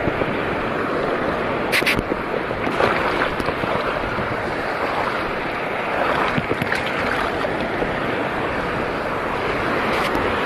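Steady rushing noise of sea water and wind on the microphone at the shore, with a few short ticks about two seconds in and near the end.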